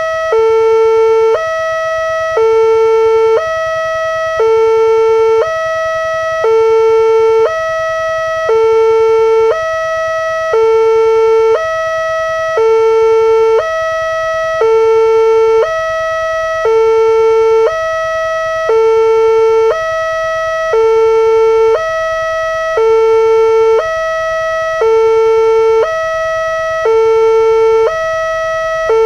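Railway level-crossing warning alarm, a loud electronic signal that switches evenly between two tones, each held about a second. It means the crossing is closed and a train is coming.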